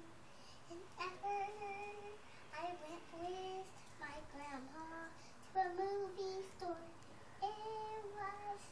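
A young child singing without accompaniment, in about five short phrases of held notes with brief pauses between them.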